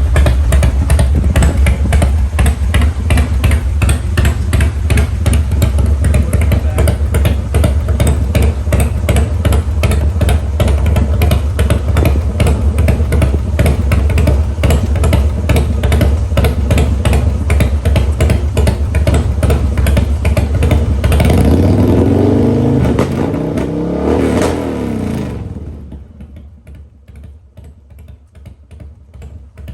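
Harley-Davidson FXR motorcycle's V-twin engine running with a loud, steady low rumble. About three-quarters of the way in, its pitch swings up and down a few times, then the sound drops off sharply shortly before the end, leaving a much quieter background.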